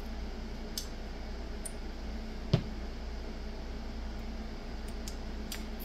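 Steady low hum, with a few light clicks and one sharp knock about two and a half seconds in as a rotary tattoo machine is set down on the bench and a pen-style machine picked up.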